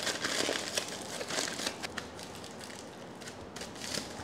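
Aluminium foil crinkling as it is folded and pressed into shape by hand: a dense run of small crackles, busier in the first two seconds and thinning out after.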